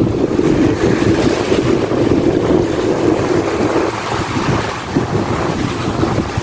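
Strong wind buffeting the microphone over waves washing onto a sandy shore. The rumble eases about four seconds in.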